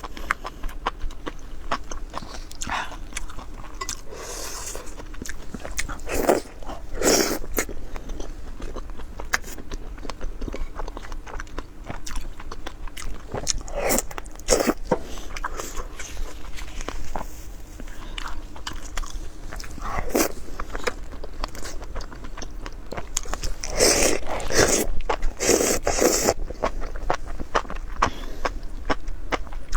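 Close-up sounds of a person eating: repeated bites and chewing, with crisp clicks and several louder crunchy mouthfuls.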